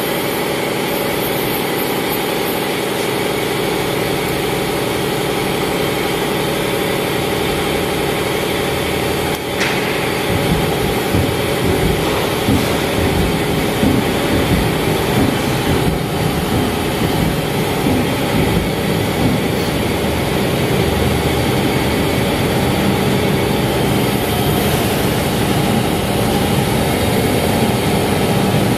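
Okuma 2SP-150HM twin-spindle CNC turning center running, a steady dense machine whir with several held motor tones. About ten seconds in, a short sharp sound, then the noise grows louder and rougher in the low end.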